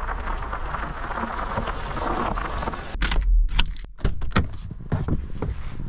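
A steady rushing noise for about three seconds, then a quick run of sharp clicks and knocks as the MPV's inside door handle is pulled and the car door is opened.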